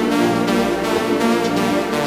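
Background music: a loud electronic track with sustained synth chords.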